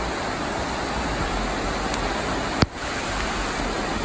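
Floodwater rushing down a street, a steady even rush of water. A single sharp click about two and a half seconds in.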